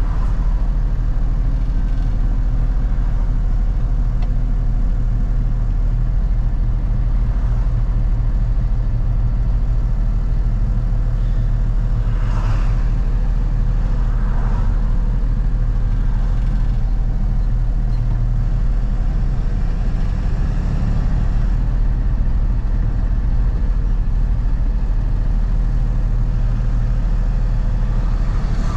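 A 2014 box truck's engine and road noise heard from inside the cab while driving at speed: a steady low rumble. Two short whooshes come through about twelve and fourteen seconds in.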